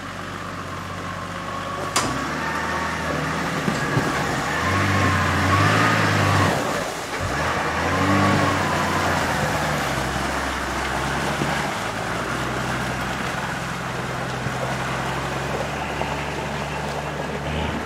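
Toyota Land Cruiser HDJ80's 4.2-litre turbo-diesel straight-six working under load as the truck crawls over rough, muddy ground. The revs rise and fall and are loudest from about five to nine seconds in. A single sharp knock comes about two seconds in.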